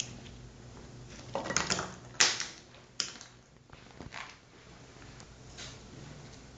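Dry, browned bread slices clacking and crackling against one another and the clay dish as they are laid in by hand: a cluster of knocks about a second and a half in, then two sharp louder clicks about two and three seconds in, and a softer one near four.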